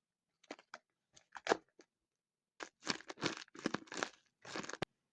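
Plastic packaging crinkling and rustling as it is handled, in irregular bursts that grow busier after the halfway point and end with a sharp click.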